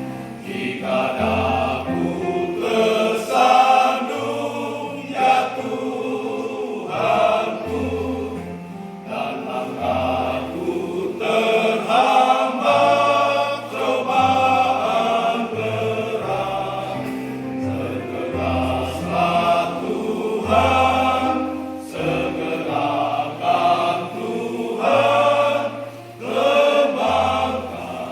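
Church choir singing a hymn in parts, over low held bass notes that change pitch every second or two.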